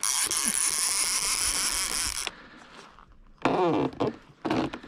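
Avet MXL two-speed reel's drag and clicker buzzing steadily for about two seconds as a fish pulls line off, then stopping abruptly. A short sound falling in pitch follows about a second later.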